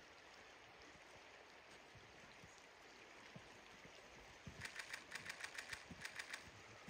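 Faint, steady flowing-river ambience. About two-thirds of the way in, a quick run of sharp clicks, roughly six to eight a second, lasts about two seconds.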